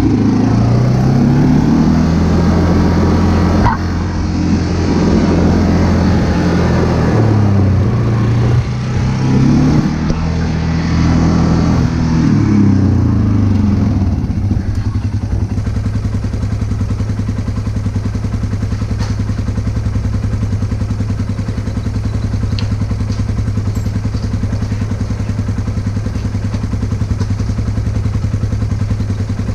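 Vehicle engine running under changing throttle, its pitch rising and falling several times, then settling to a steady idle about halfway through.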